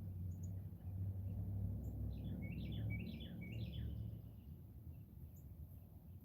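A songbird gives a quick run of short chirps for about two seconds in the middle, over a steady low rumble.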